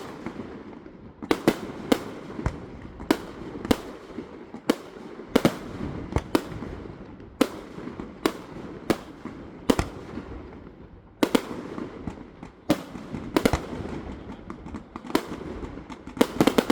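Fireworks display: aerial shells bursting in a steady succession of sharp bangs, about one or two a second, over a continuous crackle, with a rapid cluster of bangs near the end.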